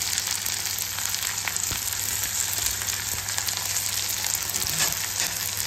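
Chopped onions sizzling steadily in hot rice bran oil in a kadai, with a few faint crackles through the hiss.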